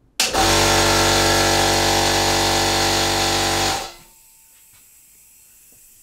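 Electric air compressor running loudly and steadily for about three and a half seconds, then cutting off. A faint steady hiss of compressed air follows, escaping from leaks in several fittings.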